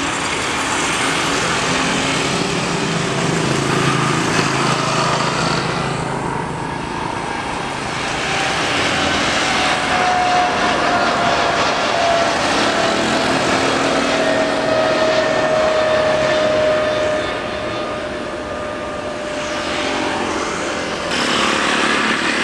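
Jet airliner engines at takeoff thrust during the takeoff roll and climb-out: a steady, loud jet noise with a whine that slides slowly down in pitch as the aircraft passes and climbs away. The sound changes abruptly near the end.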